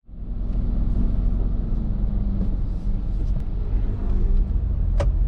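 Steady low road and engine rumble inside a moving car's cabin, with one sharp click about five seconds in.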